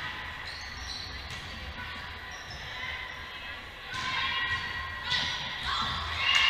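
Volleyball rally in a gym with a hardwood floor: the ball is struck with sharp slaps and sneakers squeak on the court, with players' and spectators' shouts swelling over the last couple of seconds.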